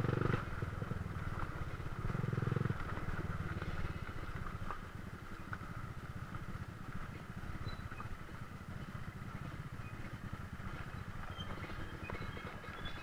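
Dirt bike engine ridden over a rocky trail, with two short bursts of throttle near the start and about two seconds in, then running at lower revs for the rest.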